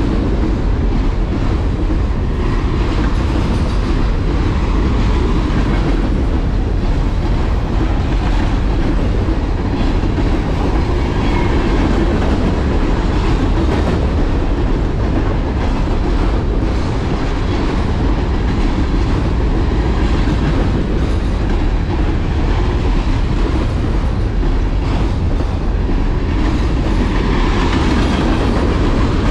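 A train rolling steadily past, loud and continuous, with its wheels clicking over the rail joints.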